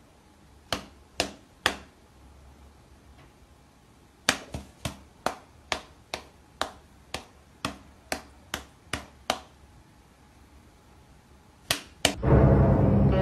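A series of sharp clicks: three close together early, then about a dozen at roughly two a second, then two more in quick succession. Loud music starts suddenly near the end.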